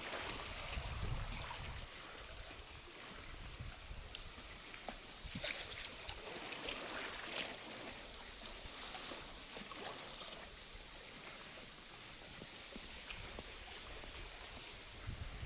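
Small water movement lapping and trickling, with a thin steady high-pitched tone and a few faint clicks partway through.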